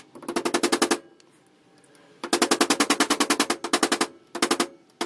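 Rapid light taps of a mallet on a steel punch, driving the spider-gear cross pin back into a Nissan C200 differential carrier. The taps come about a dozen a second in three main runs with short pauses between them.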